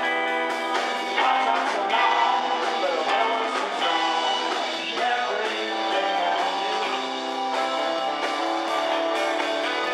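Live rock and roll band playing: electric guitars and electric bass with sung vocals and a steady beat. The sound is thin, with almost no deep bass.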